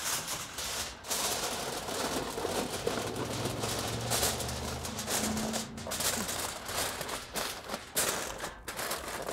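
Heavy-duty aluminium foil crinkling and crackling as it is pressed and crimped tightly around the rim of an aluminium pan, with dense, irregular crackles throughout.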